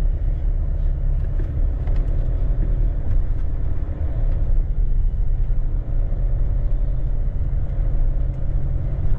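Steady low rumble of a vehicle moving slowly along a street: engine and road noise, with a faint steady hum above it.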